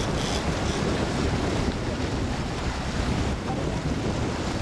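Steady rushing of a motorboat's churning wake, with wind buffeting the microphone and a low rumble underneath.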